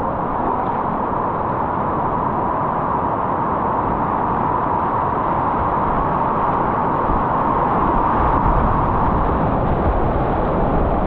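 Whitewater rushing steadily around a kayak: a loud, even wash of water with no breaks, its low rumble a little stronger in the second half.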